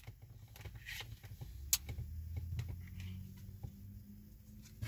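Faint, scattered ticks and taps of tarot cards being handled and laid down, over a faint low hum.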